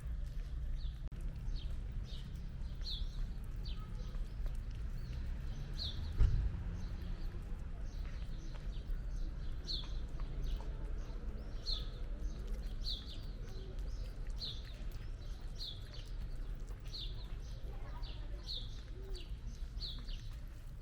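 A small bird chirps over and over, one short high chirp falling in pitch about once a second, over a steady low rumble. A single thump comes about six seconds in.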